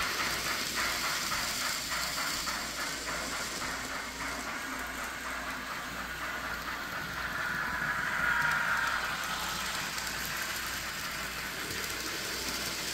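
Model trains running on a display layout's track, a steady rattle of wheels on rails. There is rapid clicking in the first couple of seconds, and a whine swells about eight seconds in as a train passes close.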